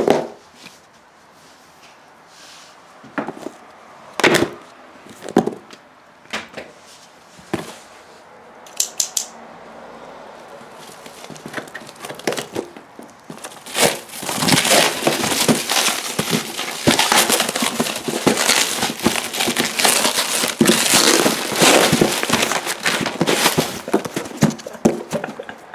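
Parcel handling: a few separate knocks and rustles, then from about halfway a long stretch of plastic wrapping crinkling and tearing as it is pulled off a taped cardboard box.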